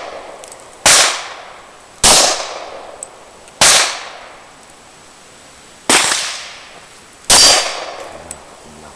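Five shots from a Glock 22 .40 S&W pistol, fired one at a time at uneven intervals of one to two seconds, each trailing off in echo.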